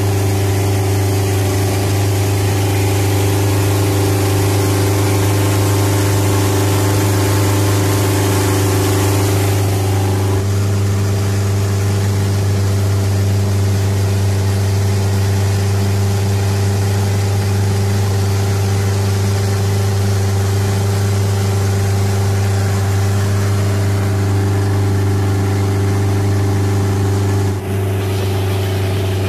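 A longtail boat's engine runs steadily at cruising speed, a loud, constant drone heard from on board with water and wind hiss. Its tone shifts slightly about ten seconds in.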